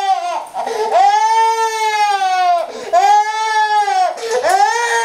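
A one-year-old girl crying hard in long, high wails, about three in a row with short gasping breaths between them, from the pain of her vaccination shots.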